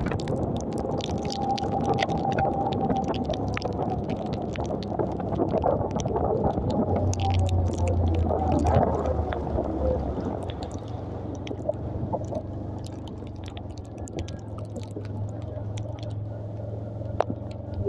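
Motorcycle engine running in heavy rain, with wind noise and raindrops ticking on the microphone; the engine note drops somewhat in the second half.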